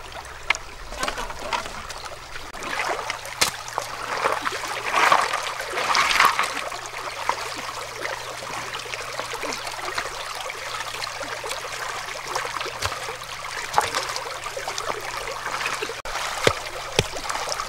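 Shallow stream trickling over rocks, with splashing as rocks are shifted by hand in the water. Near the end, a couple of knocks as a wooden stake is hammered into the streambed.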